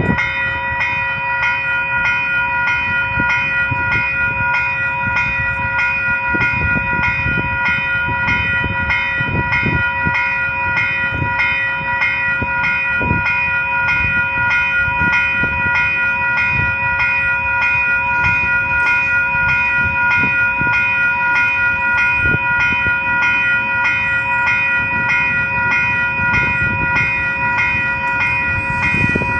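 Level crossing warning bell ringing rapidly and steadily, an even run of ringing strokes about two to three a second. Underneath is a low rumble that swells near the end as the approaching diesel locomotives come closer.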